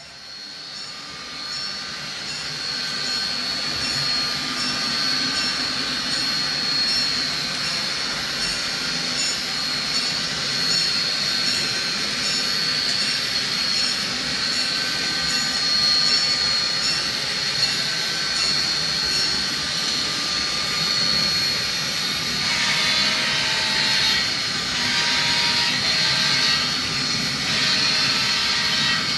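HO scale model train running on the layout, with a steady high-pitched whine that rises in level over the first few seconds and then holds. Its tones shift from about two-thirds of the way through.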